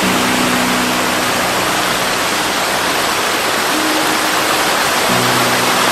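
Water rushing steadily down a gorge's mountain stream and waterfalls, with background music of low held notes.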